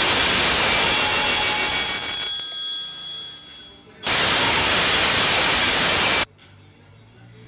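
Loud, steady hiss with a thin high whistle in it, fading out about three seconds in; a second hiss starts suddenly around four seconds and cuts off abruptly two seconds later.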